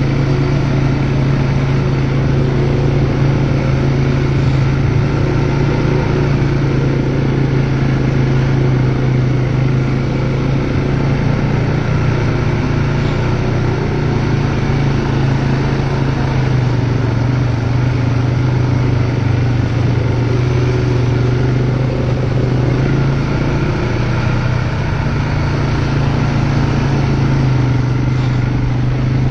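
ATV engine running at a steady, even pitch while riding, with wind and rolling noise underneath.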